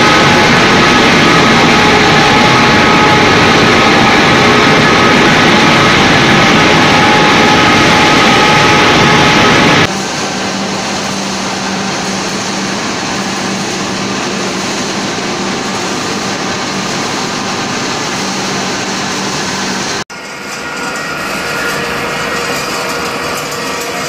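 Wood pellet production machinery running steadily: loud, even mechanical noise with several steady tones. It changes abruptly about ten seconds in to a quieter run with a steady low hum, and again near twenty seconds in.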